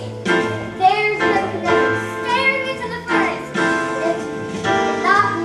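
Song with singing over instrumental accompaniment, led by children's and women's voices.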